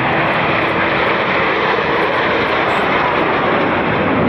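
Steady jet engine noise from a formation of Snowbirds CT-114 Tutor jet trainers flying overhead in a smoke-trailing display.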